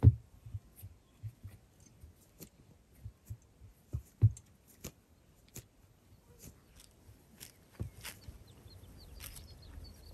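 Horses and foals at a tether line, with irregular soft knocks and crisp clicks, the loudest at the start and again about four seconds in. A few faint bird chirps come near the end.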